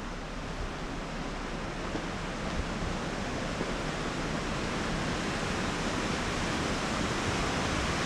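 Steady rushing wind noise on the microphone, an even hiss with no distinct events, slowly getting a little louder.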